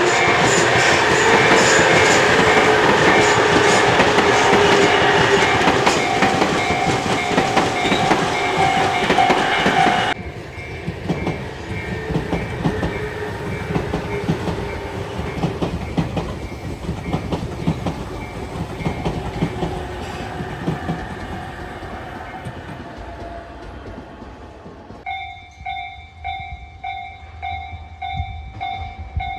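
Japanese railway level-crossing bell ringing its repeated "kan-kan" while a Tobu electric train passes over the crossing, wheels clacking over the rail joints. The sound drops suddenly about ten seconds in, the train noise then fades away, and near the end the crossing bell rings clearly by itself.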